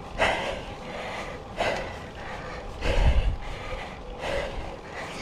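Cyclist breathing hard on a steep climb, a heavy breath about every second and a half, four in all.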